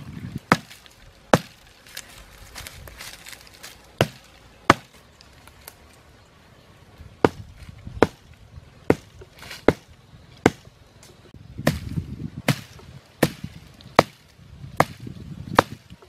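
A thin sapling's wooden trunk being hacked at its base with a hand-held cutting tool: about seventeen sharp chopping strikes at an uneven pace, pausing briefly about five seconds in, with rustling of dry brush between strokes.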